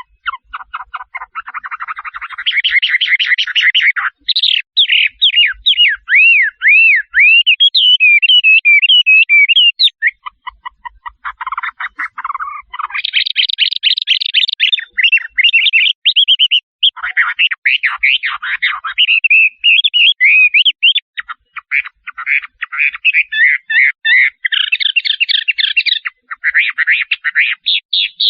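Shrike singing a long, unbroken, varied song: rapid buzzy chattering trills alternating with runs of quick swooping whistled notes.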